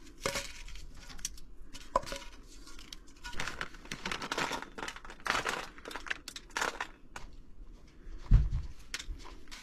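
Aluminium foil crinkling and shredded cheese being scattered by hand, a run of short rustles and scrapes, with one low thump near the end.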